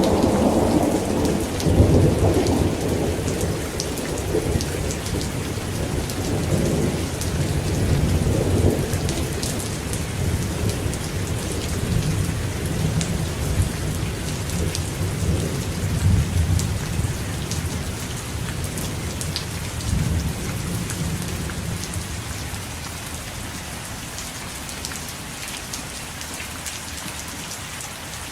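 Steady rain falling, with a long, low rumble of thunder that is loud at first and slowly dies away, leaving only the rain near the end.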